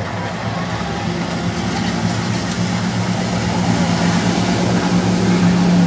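An engine running at a steady pitch, growing gradually louder as it comes closer.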